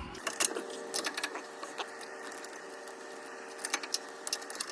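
Hand ratchet clicking in short bursts, about a second in and again near the end, while the nuts of a truck's front wheel hub bearing assembly are drawn in. A steady hum runs underneath.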